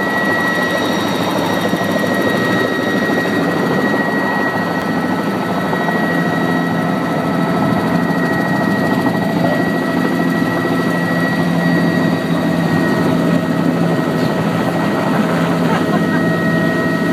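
Helicopter in flight: steady, loud engine and rotor noise with a constant high-pitched whine and a low hum underneath.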